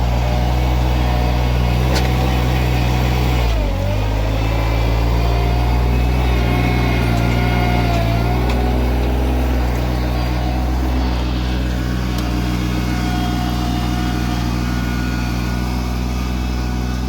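Small 24-horsepower tractor engine running steadily under load while pulling a one-bottom plow, its pitch dipping briefly about four seconds in and then recovering as the plow bites.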